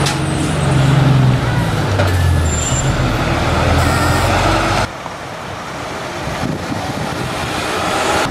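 Diesel engine of a Hino Blue Ribbon city bus (KC-HU2MMCA) pulling away and turning, its note dropping in steps. About five seconds in the sound cuts to a quieter diesel engine of an Isuzu Cubic bus (KC-LV380L), growing slightly louder.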